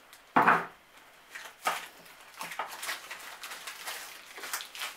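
Hands rummaging in a burlap sack of groceries: rustling of the sacking and plastic packaging, with a short loud rustle about half a second in, then scattered lighter rustles and knocks.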